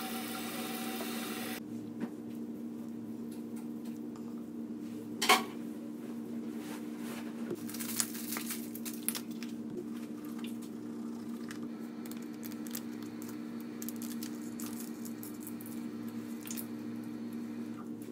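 Quiet squishy rubbing and small clicks from brushing teeth and working skincare product into the face, over a steady low hum, with one louder knock about five seconds in.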